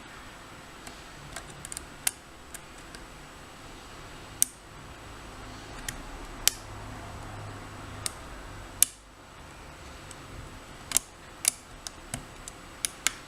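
Sharp little metallic clicks, about a dozen spaced irregularly, from a lock pick working the pins of a challenge pin-tumbler lock held under light tension.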